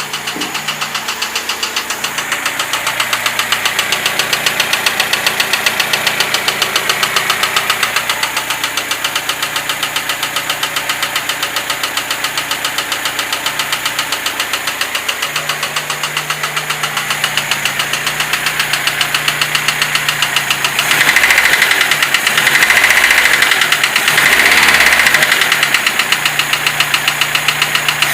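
Lada Niva 21213's four-cylinder petrol engine running with a fast, even knock. Near the end the engine is revved up briefly three times and the knock grows louder.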